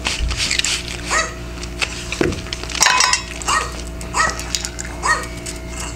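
A recording of a dog barking, played to the dog: short barks repeat about once every 0.7 s, with one sharper, louder clatter about three seconds in. Under the barks is the dog crunching dry kibble.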